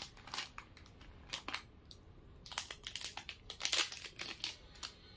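Thin plastic packaging crinkling and crackling in short, irregular bursts as it is handled, busiest past the middle.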